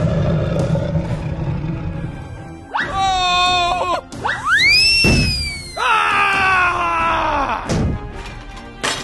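Background music with cartoon sound effects: a brief wobbling warble, then a whistle that rises sharply and slowly falls, then a tone that slides downward.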